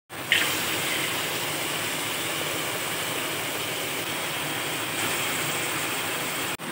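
Tap water pouring in a steady stream into an aluminium pot of raw eggs, splashing over the eggs as the pot fills; the flow starts suddenly just after the beginning.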